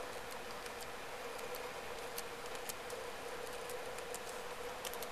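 Password typed on a laptop keyboard: a quick, irregular run of light key clicks over a steady hum.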